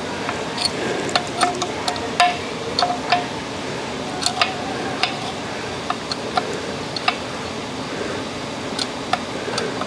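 Ratchet and socket clicking and clinking against metal, irregular sharp ticks, some with a brief ring, while the camshaft bearing bolts are run in on the side of a Model T engine's cast-iron block.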